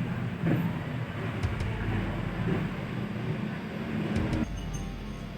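Steady low engine-like hum, as of a motor vehicle running, which changes abruptly near the end.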